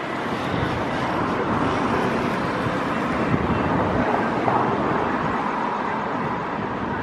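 Steady wash of vehicle noise, even in level throughout, with no distinct horn, clank or other single event.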